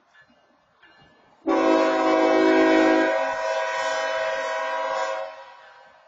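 Locomotive air horn sounding one long blast of about four seconds, a chord of several steady notes whose lower notes drop out partway through. It is a long blast of the long-long-short-long grade-crossing warning sequence.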